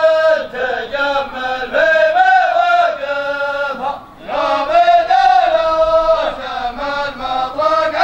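A voice chanting an Arabic poem in the Gulf shaylah style, sung in long melodic phrases with a short break about four seconds in.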